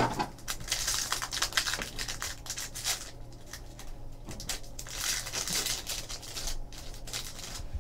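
Plastic trading-card pack wrapper crinkling as it is torn open, with cards rubbing and sliding against each other in hand: a run of small crackles and scrapes.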